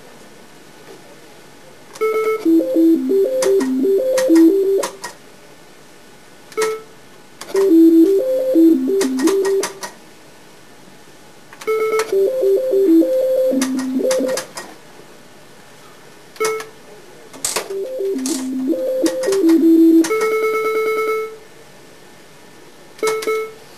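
IGT S2000 Triple Double Diamond reel slot machine being played: a short electronic beep as a spin starts, then a tune of quick stepping electronic notes while the reels spin, with clicks as they stop, four times over. Near the end a held beep with rapid clicking, as a 10-credit win counts onto the credit meter.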